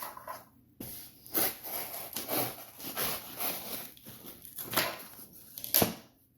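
A shipping package being opened by hand: irregular rustling and tearing of cardboard and packing material, with one sharp snap near the end.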